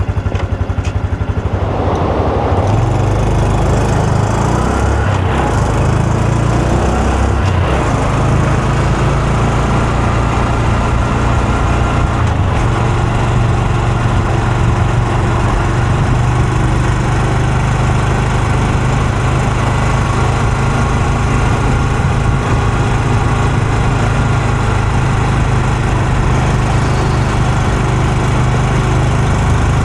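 Honda Super Cub C125's single-cylinder engine and exhaust running on the bike. The engine note changes in steps over the first eight seconds or so, then holds steady.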